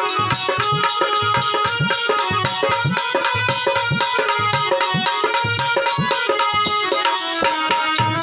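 Instrumental interlude of a Hindi devotional bhajan. A tabla keeps a fast, steady rhythm, its low bass-drum strokes bending upward in pitch, under held melody notes.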